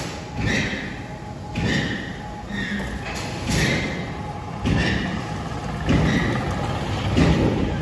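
Dogs eating dry food from plastic bowls: a thud or crunch roughly once a second.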